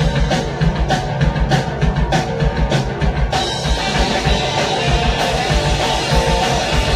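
An amateur garage-rock band playing, with drum kit and electric guitar, in a rough home recording. The sound grows fuller and denser about three seconds in.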